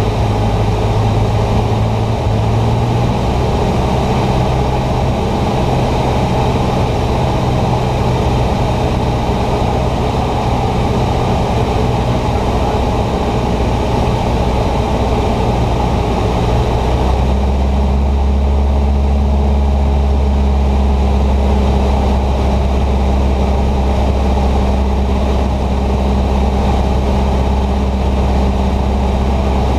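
Cessna 150's four-cylinder Continental O-200 engine and propeller running steadily in flight, heard inside the cockpit. About seventeen seconds in the engine note drops to a lower, deeper tone.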